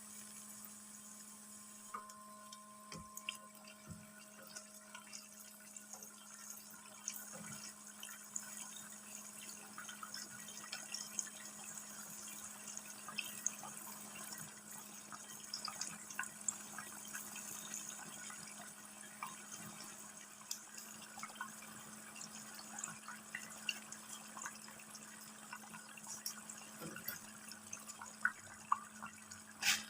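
Filled donut dough deep-frying in hot oil: a soft steady sizzle with many scattered small pops and crackles, over a steady low hum, and a sharper crack just before the end.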